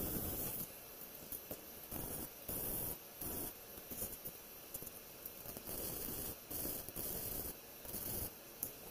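Arc welding on steel strut channel: several short bursts of crackling hiss, each a fraction of a second to about a second long, as tack welds are laid on the frame's joints.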